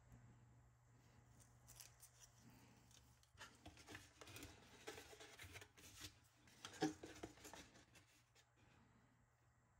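Faint handling noise: light rustles and small clicks of hands working a foam core board antenna panel with copper foil tape, with the sharpest click about seven seconds in.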